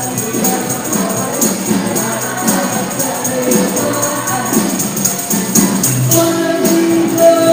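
Upbeat music with singing voices over a steady beat.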